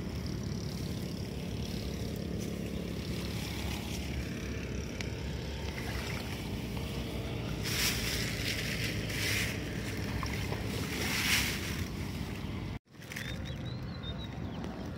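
Steady low rumble of wind buffeting the microphone, with three bursts of crackly rustling from a plastic bag being handled in the grass in the second half; the sound cuts out briefly near the end.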